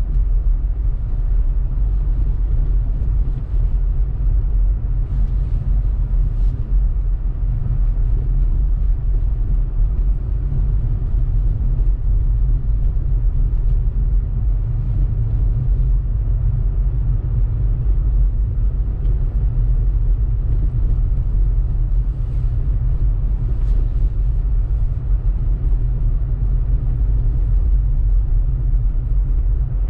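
Steady low rumble of a 2018 Honda Civic Sport hatchback, with its 1.5-litre turbo four, driving slowly on a snow-covered road: engine and tyre noise with no breaks.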